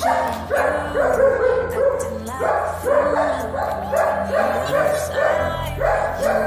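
A quick, even run of dog barks, about two to three a second, over a pop song with a steady beat.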